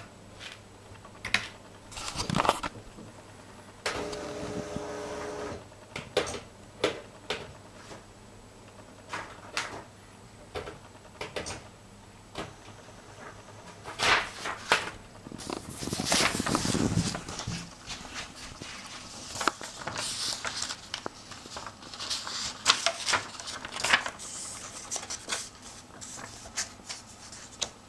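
Scattered clicks and rustles of hands at work: a key pressed on the ZX Spectrum's keyboard, then a sheet of paper being laid into the pen plotter. A short hum of a few steady tones sounds about four seconds in.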